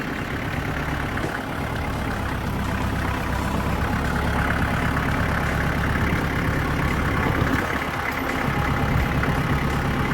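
Tractor engine running steadily under load as the bucket with a ratchet rake pushes a pile of brush, growing gradually louder.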